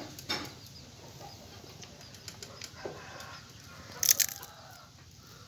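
Chickens clucking faintly, with a few small clicks and a brief sharp rustle about four seconds in.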